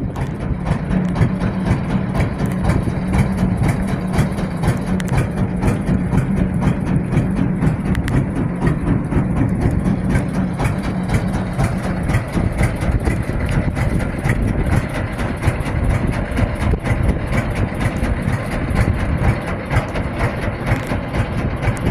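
Boat engine running steadily, with a low hum that is strongest in the first half and eases off about halfway through.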